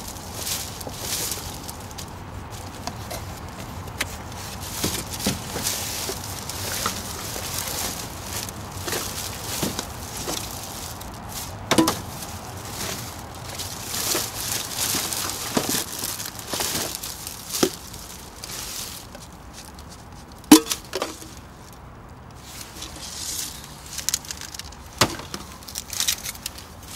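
Rummaging through litter: plastic wrappers and bags rustling and crinkling, with scattered sharp knocks and clinks, the loudest about two-thirds of the way through.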